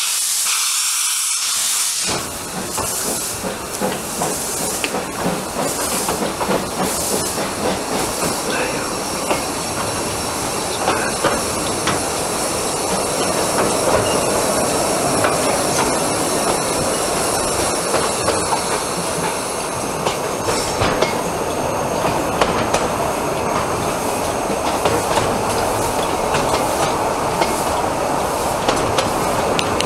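Narrow-gauge steam train running, heard from a carriage behind a Barclay 0-6-0T tank locomotive: a steady rumble of wheels with scattered clicks over the rail joints, and steam hiss. A high hiss stands alone for the first two seconds before the running noise comes in.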